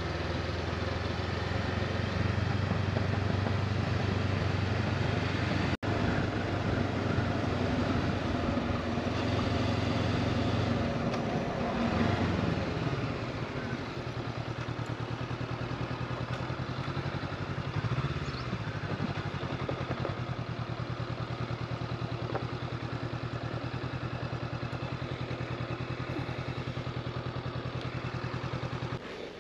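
Honda CB500X parallel-twin engine running under way, mixed with wind and road rush. The engine note rises and falls with the throttle about ten to twelve seconds in and again near eighteen seconds, and is a little quieter after that. The sound cuts out for an instant about six seconds in.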